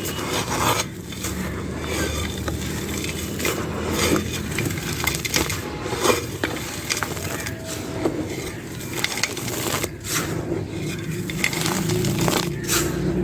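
Dry, brittle clay being crumbled: a dense run of crisp crunches and small cracking snaps, some sharper than others, with no steady rhythm.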